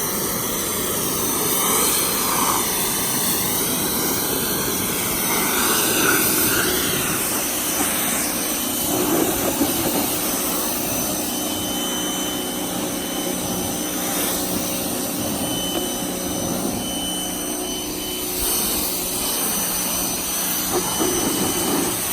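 Small electric pressure washer running steadily, its motor humming under the hiss of the water jet spraying a car's bodywork; the hiss wavers in pitch over the first seven seconds or so.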